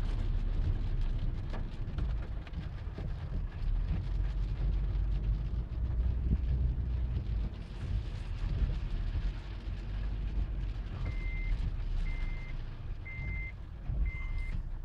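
Rain beating on a car's roof and windshield over a steady engine and road rumble, heard from inside the cabin. About eleven seconds in, a short high electronic beep starts repeating about once a second.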